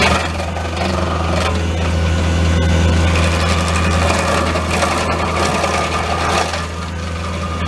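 Bobcat T630 track loader's diesel engine running under load with a steady low hum, driving an SG60 stump grinder that chews into a tree stump with scattered knocks and crunching.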